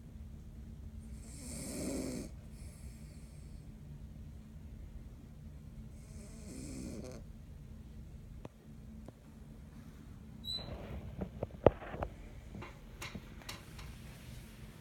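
A pet snoring, two slow snoring breaths about five seconds apart. About ten seconds in comes a run of sharp clicks and knocks, one much louder than the rest.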